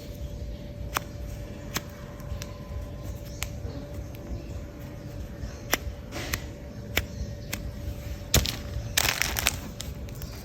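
Irregular light clicks and taps, with a short rustle about nine seconds in, over a faint steady hum: handling noises.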